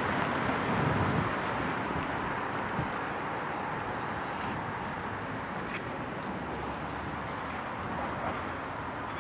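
Street ambience: a steady hiss of road traffic, a little louder at the start and easing off, with a few faint ticks.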